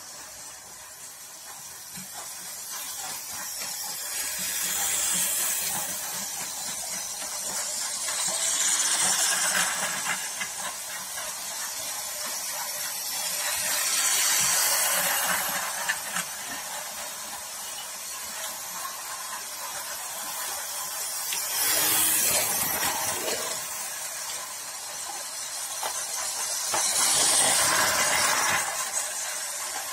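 Toy model trains running on plastic track: a hissing whir of small wheels and motors that swells five times as trains pass close by.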